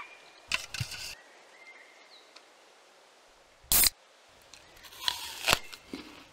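A beer can's ring pull snapped open: one short, loud crack with a hiss about two-thirds of the way in, the loudest sound here. Near the end come crisp crunches of a bite into an apple, with faint short clicks and rustles about half a second in.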